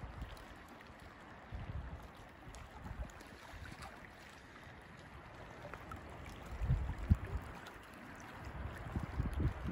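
Wind buffeting the microphone in low gusts, about two seconds in, around seven seconds in and again near the end, over a faint steady hiss. A brief thump about seven seconds in is the loudest moment.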